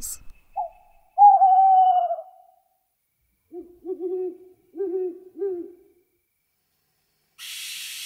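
Three owl calls one after another. First a loud, single falling call about a second in. Then a run of about six deep great horned owl hoots around the middle, and near the end a harsh, hissing barn owl screech lasting about a second.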